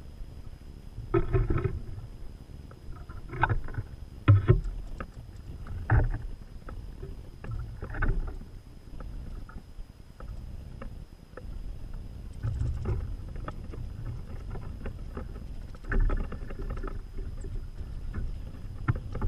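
Wind rumbling on an outdoor camera's microphone in irregular gusts, with scattered knocks and rustles.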